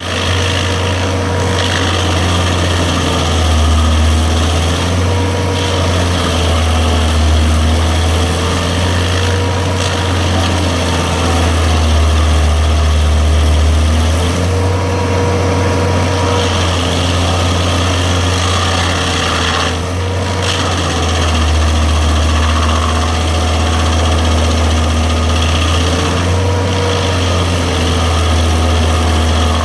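A grinder's motor running steadily and loudly with a deep hum, its pitch wavering slightly up and down.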